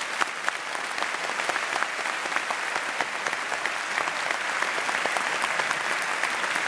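A large audience applauding, a steady dense clapping that follows the speaker's closing thanks.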